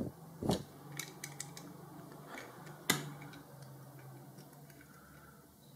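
A steel drill bit in a wooden hand handle, twisted by hand against the rivet of a die-cast toy car's metal base: a short scrape about half a second in, then scattered small clicks, with one sharp click near three seconds in.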